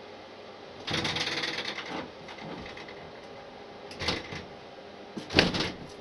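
Handling noises from a person moving about: a rustle lasting about a second, then a few short clatters. The loudest clatter comes near the end.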